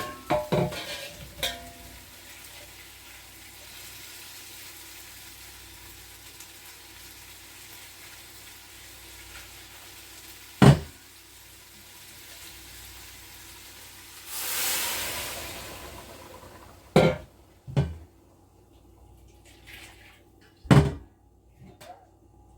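Cow foot sizzling steadily in a hot pot on the stove, with a few spoon knocks at the start. About fourteen seconds in, a loud hiss surges up and dies away over a couple of seconds as water goes into the hot pot, and the sizzle stops. A few sharp clanks of pot and lid follow.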